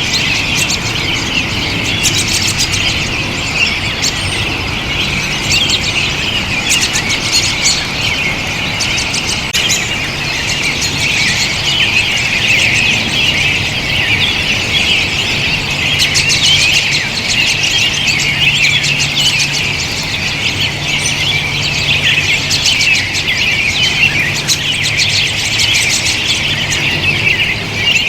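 A large flock of American robins calling together: a dense, continuous chatter of many overlapping high calls.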